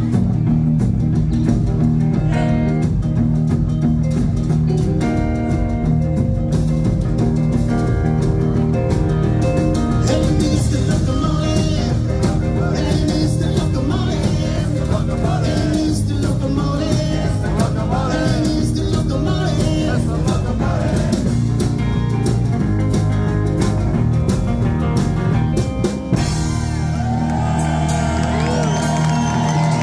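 Rockabilly band playing live, with electric guitars, electric bass, drum kit and a lead vocal. About 26 seconds in the beat drops out and a final chord rings on while the crowd whoops and whistles.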